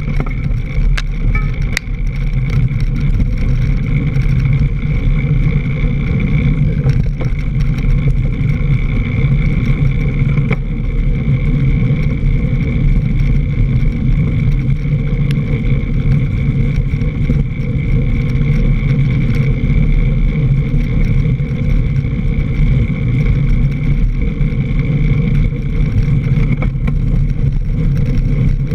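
Mountain bike rolling over a leaf-covered dirt trail, heard from a camera mounted low on the front fork: a steady rumble of tyre and wind noise with a few brief knocks from bumps.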